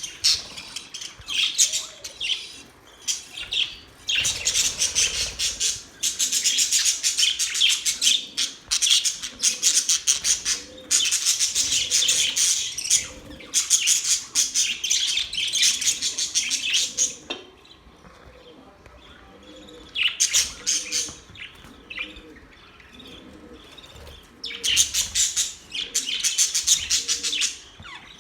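Budgerigars chirping and warbling together in fast, high chatter, in long runs broken by two brief lulls in the second half. A fainter low call repeats steadily underneath.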